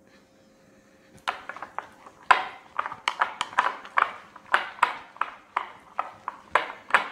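Metal spoon stirring fluffy slime and shaving cream in a glass bowl: irregular clinks and scrapes against the glass, several a second, starting about a second in.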